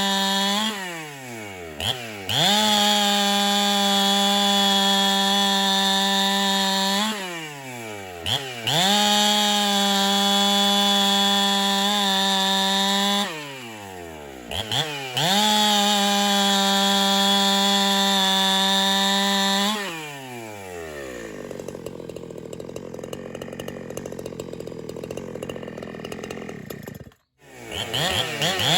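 Chainsaw running at full throttle while bucking cookies with a hand-sharpened chain, in three long stretches with the revs dropping and climbing back between them. About two-thirds of the way through it falls back to a rough idle, cuts out briefly near the end, then revs high again.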